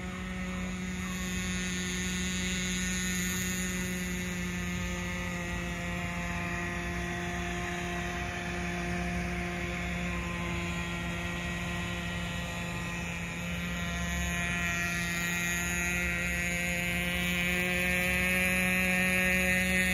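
Nitro RC boat's glow-fuel engine running at high speed, a steady high-pitched drone heard across the water, growing slightly louder near the end.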